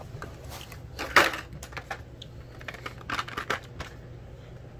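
Plastic blister-packed diecast cars being pulled from a cardboard case and set down on a stone counter: irregular crackling and clicking of the plastic packaging, with a sharp loud crackle about a second in and a quick run of clicks past the halfway point, over a steady low hum.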